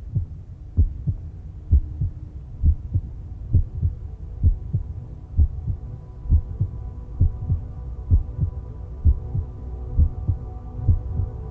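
Background electronic music: a deep, heartbeat-like double pulse about once a second, with a held tone building above it.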